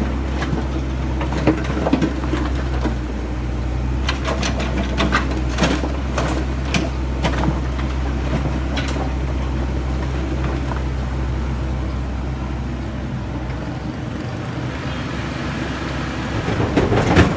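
A heavy-equipment diesel engine running steadily, with scattered short clanks and knocks over it. The deep engine drone drops away about fourteen seconds in, and another swell of machine noise builds near the end.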